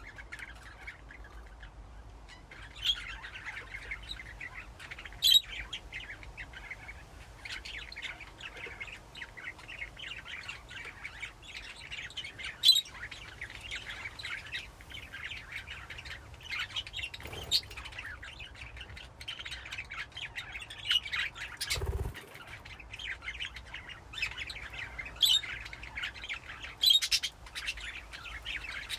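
A flock of budgerigars chattering and chirping continuously in a colony cage, the chatter picking up a few seconds in. A few sharp clicks stand out above it, with a single low thump about two-thirds of the way through.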